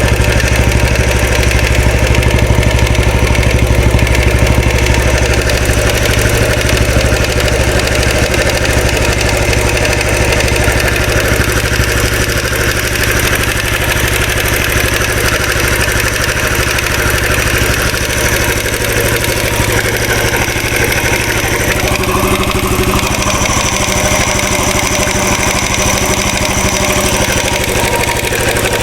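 2013 Royal Enfield Classic 500's single-cylinder engine idling steadily, with an oscillating rattle that the owner has yet to trace.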